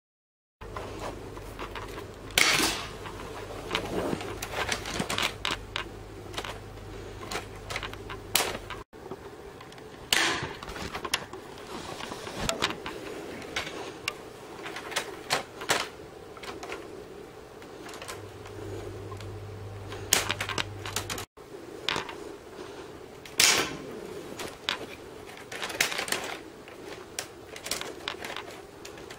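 Working LEGO L96A1 model sniper rifle being cocked and fired by hand: a stream of plastic LEGO clicks and clacks from its mechanism, with a sharp louder snap about every ten seconds, once in each of three takes.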